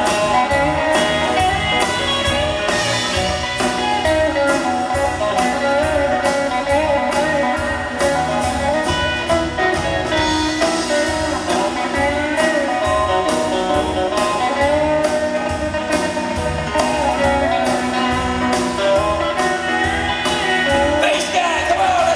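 A band playing an instrumental passage, guitar to the fore, over a steady drum beat of about two strokes a second.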